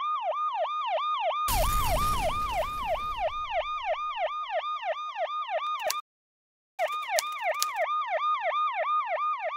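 Emergency siren in a fast yelp, its pitch sweeping down and snapping back about five times a second. About a second and a half in, a blast booms out over it and dies away over a couple of seconds. The siren cuts out abruptly for under a second about six seconds in, with a few sharp clicks, then resumes.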